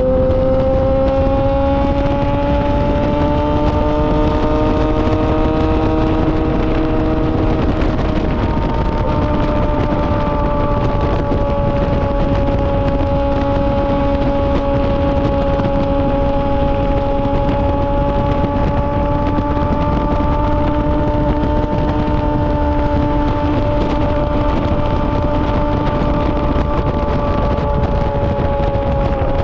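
Yamaha R6 inline-four engine breathing through an SC-Project titanium exhaust, held at a steady high rev. Its pitch creeps up a little over the first several seconds, then holds nearly level, with wind rushing on the microphone beneath it.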